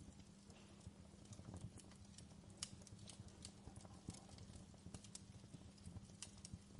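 Faint crackling of a wood fire: irregular sharp pops and snaps over a low steady rumble.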